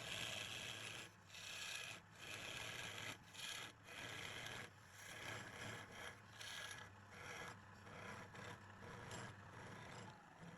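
Something rubbing and scraping against a piece of wood spinning on a wood lathe, in repeated strokes about a second apart, over the steady low hum of the lathe's motor.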